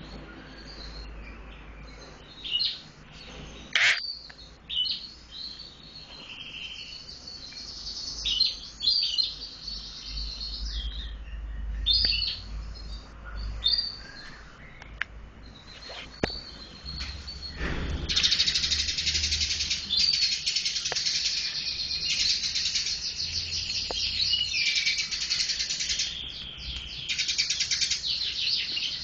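Eurasian tree sparrow chirping: separate short chirps at first, then from a little past the middle a continuous rapid chattering song.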